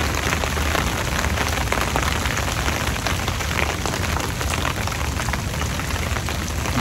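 Rain falling on an umbrella held overhead: a steady hiss dense with small, quick drop ticks.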